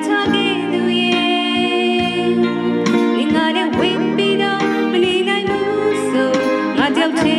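Music from an electric guitar and a keyboard, with sustained notes and several gliding, bent notes.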